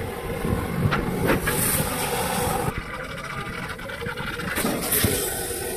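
Water jetting from a hose and splashing against a bare diesel engine block, a steady rushing spray with a few short knocks in the first second and a half.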